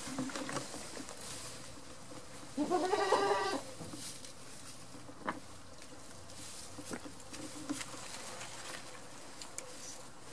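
A goat bleats once, a wavering call about a second long, a little over two seconds in; a few faint clicks follow.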